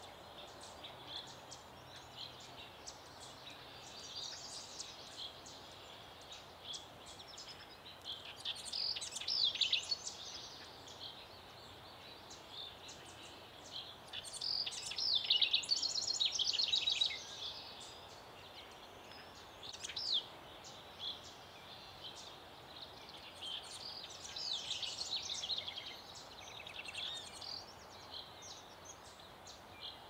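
Wild birds chirping, with louder song phrases of quick repeated notes about a third of the way in, around halfway, and again near the three-quarter mark, over a faint steady background hiss.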